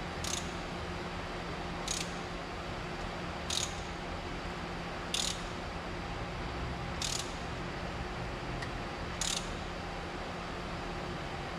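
Ratchet wrench clicking in short bursts about every one and a half to two seconds, six times, as a Holden 202 inline-six is turned over by hand, with a steady low hum underneath.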